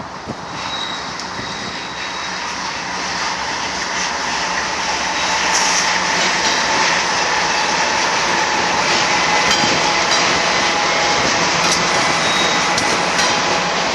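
Double-stack intermodal freight train rolling past downgrade: the rumble of its wheels on the rails swells over the first several seconds as the container cars come by, then holds steady, with a faint steady whine through the middle.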